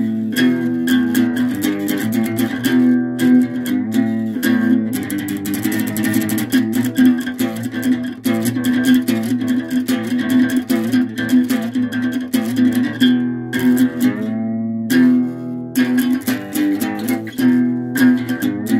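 Guitar music: plucked guitar notes over a steady low sustained tone.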